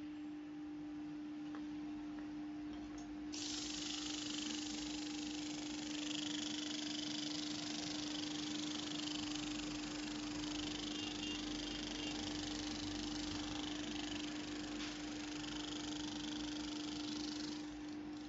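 A 5.5 kW electric motor running with a steady hum while abrasive cloth is held against its spinning shaft. The abrasive adds a steady high hiss from about three seconds in as the shaft is polished.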